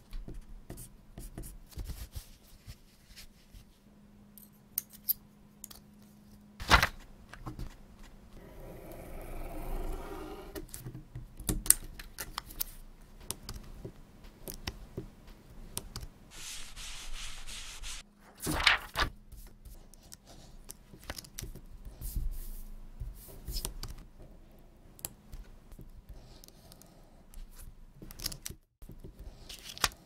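Stencil-making handwork: a marker drawing on clear plastic stencil film and a craft knife cutting and snapping through the film. Many short sharp clicks and ticks throughout, a stretch of rough scraping a few seconds in, and a brief steady hiss about halfway through.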